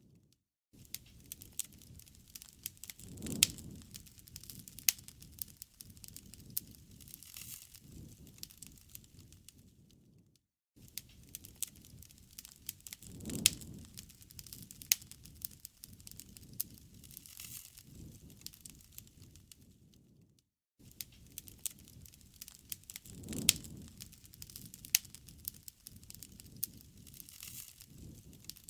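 Wood fire crackling with a hiss and frequent sharp pops. The same roughly ten-second stretch repeats three times, with a brief break of silence before each repeat.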